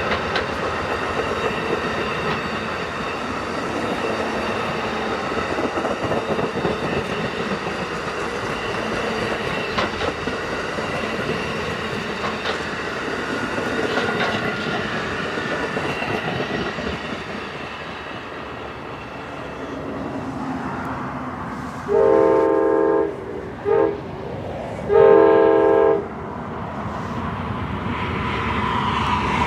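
A train rolling past with steady wheel and rail-car noise. Near the end a locomotive air horn sounds three blasts: long, short, long.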